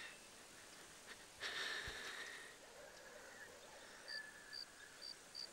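Quiet barn ambience: an animal snorts once, a breathy burst lasting about a second, about a second and a half in. Near the end, short high chirps repeat about twice a second.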